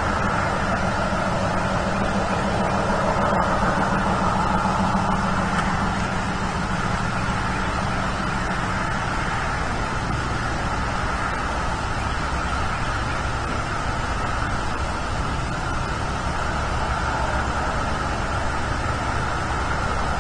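Steady outdoor background noise at the nest camera's microphone: a constant hiss with a low rumble underneath.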